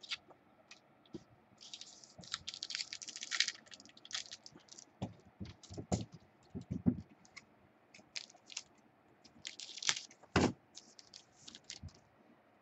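Trading cards and card packs being handled on a table: irregular small clicks and rustles, with a dense crinkly run about two to three seconds in and a few low knocks around the middle and near the end.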